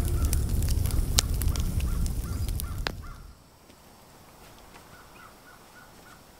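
Low rumble with sharp crackles and a series of repeated cawing bird calls, cutting off abruptly about three seconds in; after that, faint outdoor quiet with a few weak distant calls.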